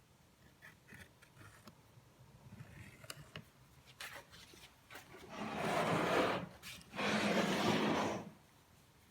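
Two long scraping rubs of a melamine cabinet panel being slid and worked into place, after a few light knocks and clicks as the panel is handled.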